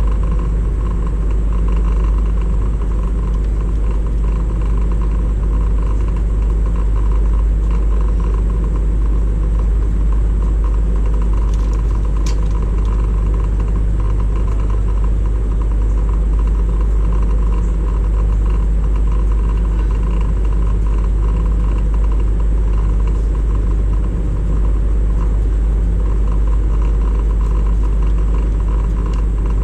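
Steady low rumble of a motor vehicle running, unchanging throughout.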